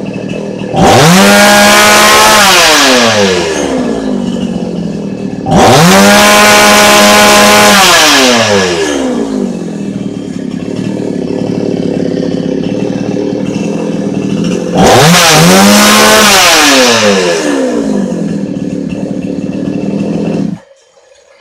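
Chinese two-stroke petrol chainsaw idling and revved to full throttle three times, each rev rising quickly, held about two seconds and winding back down to idle. It picks up cleanly with no hesitation, running well on its modified air filter with no carburettor adjustment. The engine is switched off about a second before the end.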